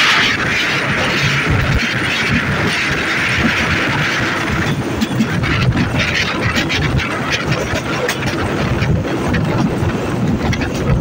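Alsthom diesel-electric locomotive hauling a local passenger train, heard from the coach just behind it: a steady engine and running rumble with the wheels clicking over the rails. A hiss sits over it and stops about four and a half seconds in.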